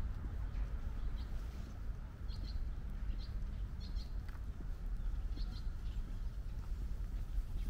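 Small birds chirping: short high calls every second or so, some in quick pairs, over a steady low rumble.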